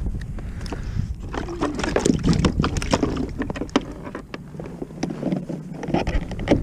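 Wind rumbling on the microphone over a kayak, with a quick run of clicks and knocks from handling the rod, reel and gear on the deck, busiest in the middle, and a sharp knock near the end.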